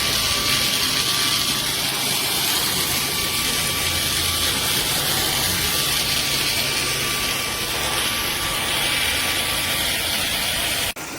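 Eureka RapidClean Pro NEC280TL cordless stick vacuum running steadily: a motor whine with a rushing airflow hiss and a low hum, dipping briefly near the end.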